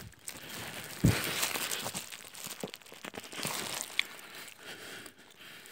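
Close-up wet chewing and mouth noises of a person eating a soft, wet mass, crackling and squelching against the phone's microphone. There is a sharp thump about a second in, likely the phone being bumped or handled.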